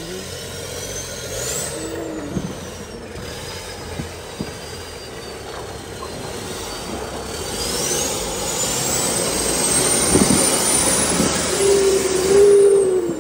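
Turbocharged engine of a Nissan Patrol working under load, with a high turbo whistle that rises and falls, then climbs higher as the engine gets louder in the second half. A short, lower squeal comes near the end.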